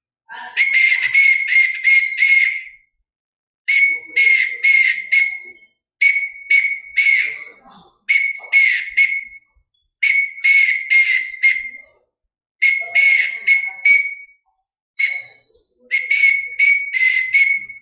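Whistle blowing Morse code in short and long blasts (dits and dahs), in about eight groups: a starting signal, the letters of the word "purple", then an ending signal.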